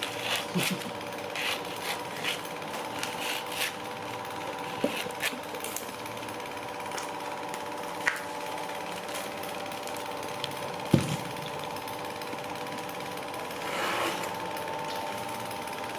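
A machine motor running at a steady pitch. There are scattered clicks and knocks in the first few seconds and a single sharp knock about eleven seconds in.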